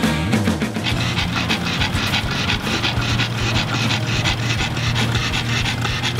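A pug panting quickly and evenly, starting about a second in.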